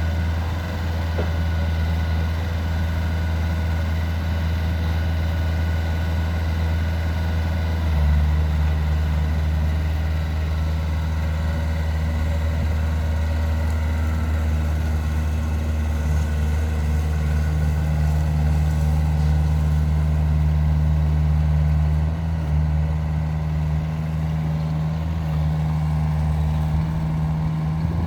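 Mitsubishi MX35 mini-excavator's diesel engine running steadily. Its pitch and level step up about 8 seconds in and shift again around 22 seconds, as the engine speed or the load changes.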